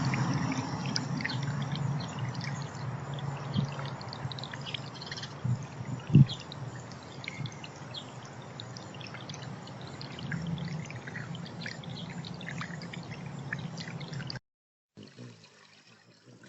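Water trickling and pouring steadily, with many brief high ticks over it and one sharp knock about six seconds in. It cuts off abruptly near the end.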